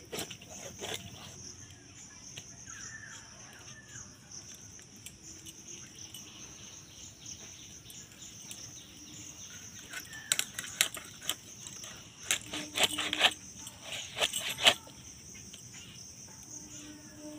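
A large katla fish being cut into steaks on a boti, the upright kitchen blade: a run of sharp knocks and crunches in the second half as the fish is pressed through the blade. A steady high chirring of insects runs underneath.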